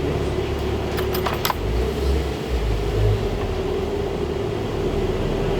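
Steady mechanical hum with a low rumble, and a quick cluster of light clicks, like small metal parts or a tool being handled, a little over a second in.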